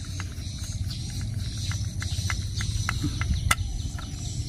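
Irregular light clicks of a screwdriver working at a small plastic battery-powered toy train held in the hand, over a steady low rumble.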